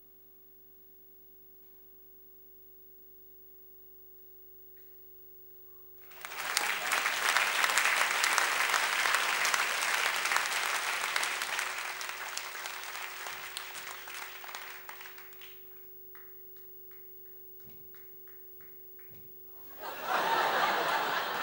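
Near silence with a faint steady hum, then about six seconds in an audience breaks into applause, which fades away over about nine seconds. A few scattered claps follow, and near the end the audience erupts again.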